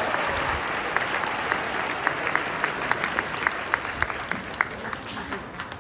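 Crowd applauding, the applause gradually dying down, with one pair of hands clapping close by at about three claps a second standing out over it.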